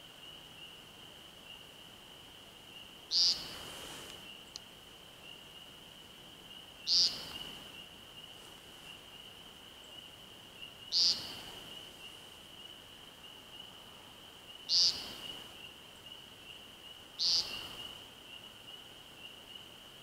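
American woodcock peenting on the ground: five short, buzzy, nasal 'peent' calls about every four seconds, the male's courtship call before his sky dance. A steady high-pitched trill runs behind the calls.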